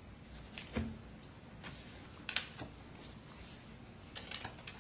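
Paper being handled close to a desk microphone, with scattered light clicks and knocks and a soft thump about a second in.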